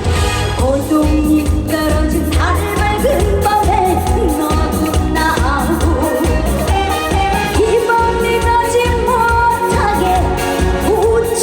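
Live upbeat Korean trot song: a woman singing over a band backing with a steady beat.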